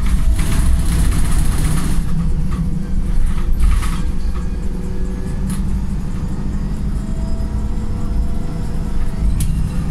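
Wright Pulsar single-deck bus heard from inside, its diesel engine running under way in limp mode with a steady low drone. A burst of high hiss and rattling comes in the first two seconds, with a shorter one near four seconds.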